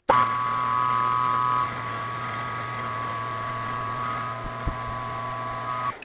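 Metal lathe running while boring out a wheel hub: a steady motor and gear hum with a high whine, louder for the first second and a half, then steadier until it cuts off abruptly near the end.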